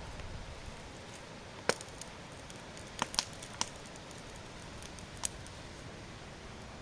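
A handful of short, sharp clicks and taps, about five spread over several seconds, over a low steady background noise.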